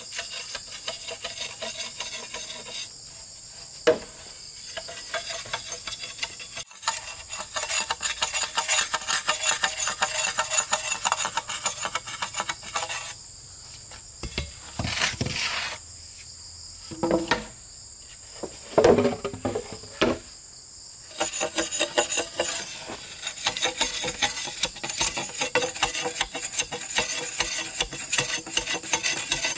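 Insects drone on a steady high pitch, which stops about two-thirds of the way through. Over it, a machete strikes green bamboo a handful of times with sharp knocks, and scrapes along a bamboo pole in quick, rapid strokes.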